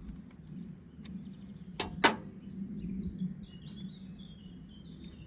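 Small birds chirping and tweeting over a steady low hum, with one sharp click about two seconds in.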